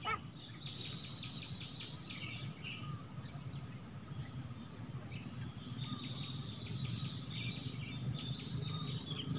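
Insects chirping in rapid trains of high, fine pulses, in two spells with a lull in the middle, over a steady low rumble.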